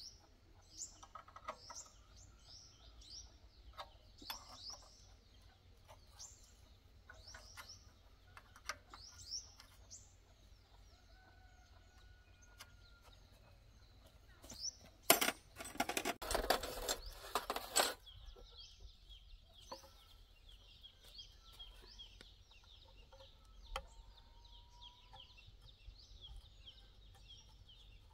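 Birds chirping over and over with short falling calls, with scattered light metallic clicks from hand tools worked on a small tractor engine. About halfway through, a loud scratchy noise lasts about three seconds, and after it a steady high hiss continues under the birdsong.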